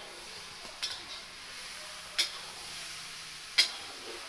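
Vegetable curry frying in a wok over a wood fire with a steady sizzle, and a metal spatula knocking against the pan three times while it is stirred, the last knock the loudest.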